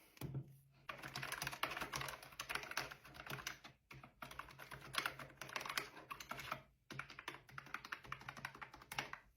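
Fast continuous typing on a Mofii wireless 'creamy' keyboard, a dense patter of soft keystrokes broken by three brief pauses.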